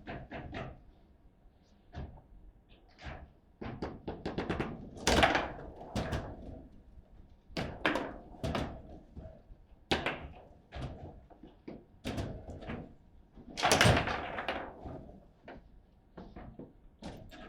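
Table football being played: an irregular run of sharp knocks and thuds as the ball is struck by the rod-mounted players and hits the table, with the hardest hits about five seconds in and about fourteen seconds in.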